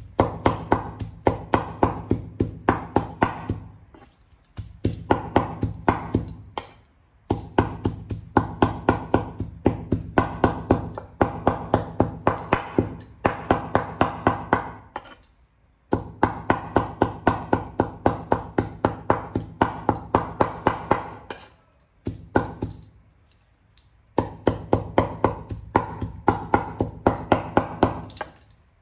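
Cleaver chopping raw pork into mince on a wooden chopping board, in fast steady runs of about five strokes a second. There are brief pauses between runs, the longest about two-thirds of the way in.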